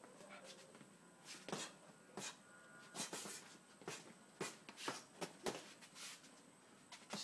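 Boxing gloves landing punches in sparring: about ten sharp slaps at irregular intervals, beginning about a second in.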